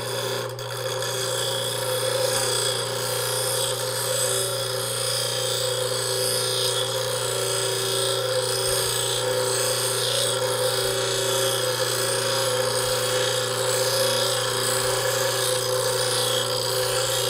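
Bench grinder running with its abrasive wheel cutting into the steel shaft of a screwdriver: a steady grinding noise over the motor's even hum, unbroken throughout.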